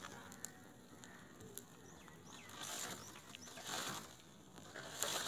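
Dry palm leaves burning around a palm fruit: faint crackling with a few sharp pops and several swells of hissing flame noise.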